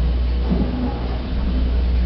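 Passenger lift car travelling between floors: a steady low hum and rumble from the moving car.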